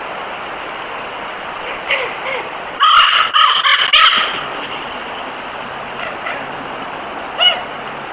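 Short, high-pitched squeaky animal calls: a quick cluster of them about three seconds in, with a few single calls before and near the end, over a steady background hiss.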